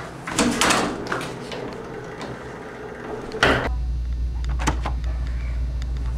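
Glass door with a metal push bar rattling and clanking as it is pushed. About three and a half seconds in a sharp knock, then a steady low hum.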